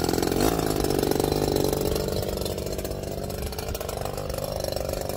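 Engine hedge trimmer's small petrol engine running just after being started, settling to a steadier, slightly quieter idle about halfway through.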